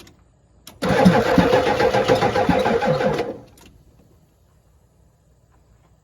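Ford 7.3 IDI V8 diesel's starter cranks the engine on jumper cables for about two and a half seconds, with a rhythmic pulsing, then stops without the engine catching. A click comes just before the cranking. The cranking is with a corroded battery post-to-terminal connection now fixed, and it sounded better.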